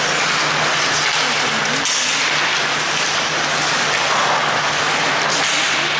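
Ambient noise of an ice hockey game in an indoor rink: a steady hiss-like din with a constant low hum under it.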